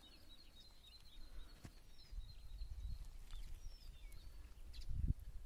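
Faint outdoor ambience: small birds chirping in short high calls over a low rumble, with one dull thud near the end.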